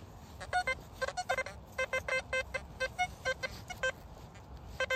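Metal detector sounding a run of short electronic beeps at irregular intervals. Most beeps are on one low pitch, with a few on a higher pitch.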